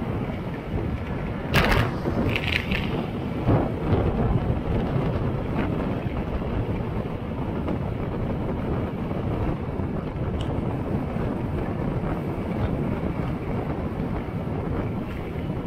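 Wind rushing over the microphone of a camera on a moving road vehicle, with steady road and engine rumble underneath. A few short knocks come in the first four seconds, one with a brief rattle.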